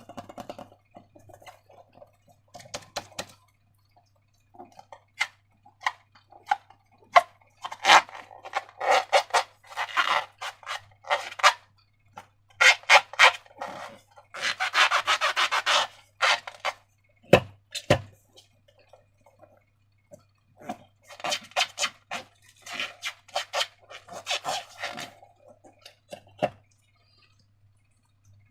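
Hands squishing and stretching slime: sticky crackling clicks and rubbing in bursts of a few seconds, with two dull thumps a little past the middle. A faint steady low hum runs underneath.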